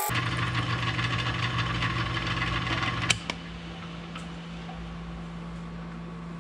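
Milling machine running with the end mill clear of the aluminum channel, the cut just finished. About three seconds in there is a click and the machine's hum drops away, leaving a quieter, lower steady hum.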